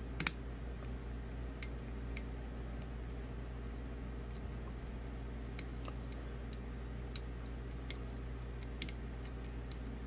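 Small, irregular metallic clicks of a lock pick working the wafers of a Loxem indoor wafer lock, the sharpest just after the start, over a faint steady low hum.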